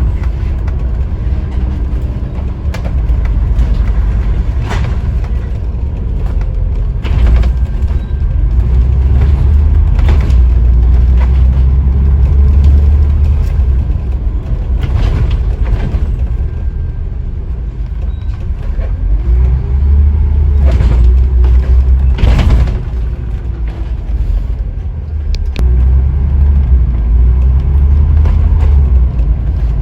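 Scania N94UD OmniDekka double-decker bus under way: the diesel engine's low rumble swells as it pulls away and eases off again, three times, with its pitch rising and falling through the gears. Sharp knocks and rattles from the body come through now and then.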